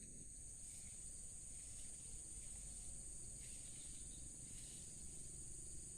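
Insects chirring in a steady, high-pitched chorus over a faint low background hum.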